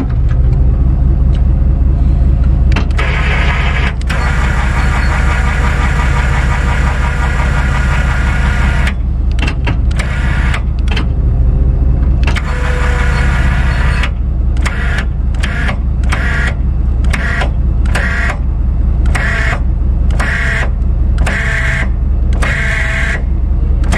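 Steady low rumble of a vehicle running. Over it is a higher pitched tone that holds for several seconds early on, then comes and goes in short, regular pulses in the second half.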